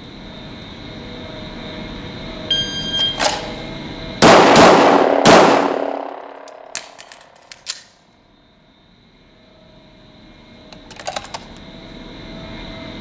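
A shot timer beeps. About a second and a half later a 9×19mm Glock 17 pistol fires three shots, two in quick succession and a third a beat later, each ringing out in the echo of an indoor range. The two-then-one cadence fits a Mozambique drill: two to the body, one to the head.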